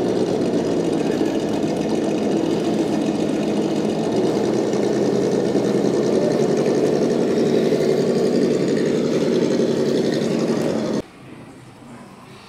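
Electric motor and gear drivetrain of an RC scale crawler truck whirring steadily as it creeps over logs. About eleven seconds in it cuts off abruptly to a much quieter background.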